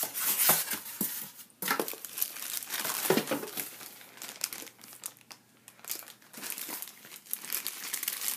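Clear plastic wrapping around a toy salon styling caddy crinkling irregularly as it is handled, with short lulls about a second and a half and five seconds in.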